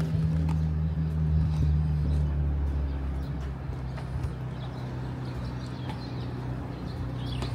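Street traffic: a large vehicle's engine running close by, a steady low hum that fades over the first few seconds and then goes on more quietly.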